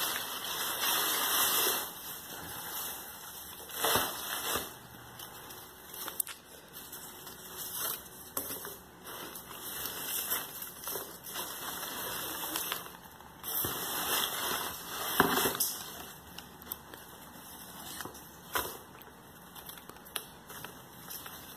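Shredded paper and crumpled wrapper packing rustling and crackling as hands dig through a cardboard box, in irregular spurts with a few sharper crackles.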